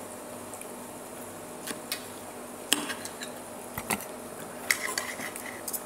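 A few scattered clinks and scrapes of a metal fork and knife against a plate, starting about a second and a half in, over a faint steady hum.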